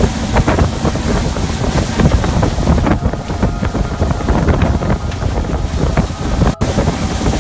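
Strong wind buffeting the microphone on a boat: a loud, steady rumble that drops out for an instant near the end.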